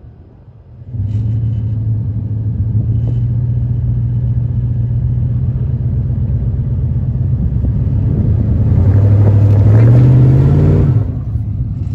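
Ford F-150's 5.4-litre Triton V8 revving under load from about a second in as the truck tries to reverse out of deep sand onto traction boards. Near the end the revs rise and the rear tire spins, spraying sand, before the engine drops back.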